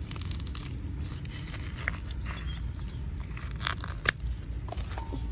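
Thick cassava root rind being peeled and torn off by hand, with a few sharp cracks as the peel splits away from the flesh, over a low steady rumble.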